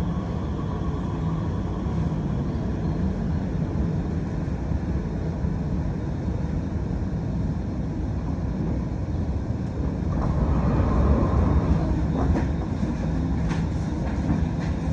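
Cabin noise inside a MOVIA R151 metro train: a steady low rumble of the train in service, swelling briefly about ten seconds in.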